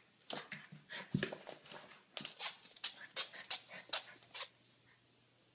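Golden retriever puppy panting in short, quick breaths with a few small whimpering sounds, about two or three a second, stopping about four and a half seconds in.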